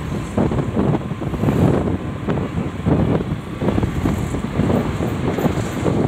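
Wind buffeting the microphone: a loud, irregular low rumble that rises and falls in gusts.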